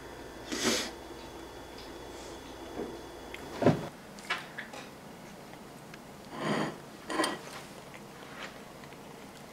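A child handling a sandwich on a plate at a table: a sharp knock a little under four seconds in, then a few small clicks and short rustling bursts.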